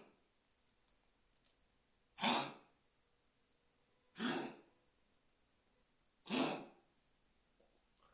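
Small white puppy coughing: three short, harsh coughs about two seconds apart, from a cough that has just started.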